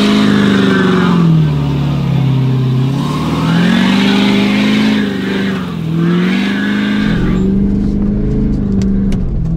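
Ford F-350 pickup's engine revving up and down over and over while its wheels spin in mud, the pitch rising and falling about every two seconds. From about seven seconds in it holds steadier, heard from inside the cab.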